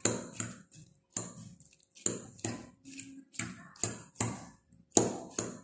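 A steel spoon stirring fruit salad and cream in a glass bowl, clinking against the glass about two or three times a second.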